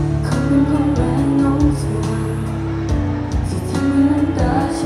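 Pop song music from the stage sound system during a live performance, with a sustained bass line, held instrument notes and drum hits.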